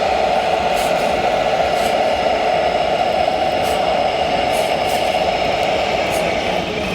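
Radio-controlled model truck running with a steady engine-like drone, with a few faint ticks.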